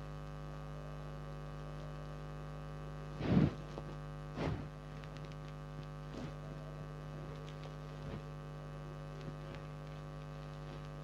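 Steady electrical mains hum with a buzzy stack of overtones, with two brief soft noises about three and four and a half seconds in.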